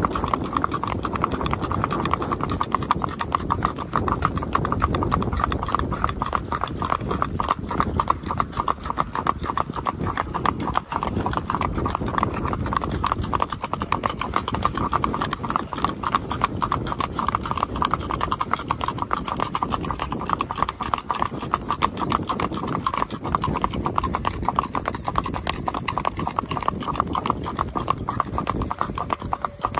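A ridden horse's hooves clip-clopping on a paved road, a quick, steady run of hoofbeats that keeps going without a break.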